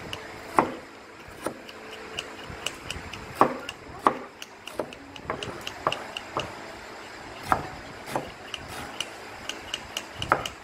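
Irregular sharp knocks on wood, roughly one a second and uneven in strength, with a faint regular high ticking about three times a second.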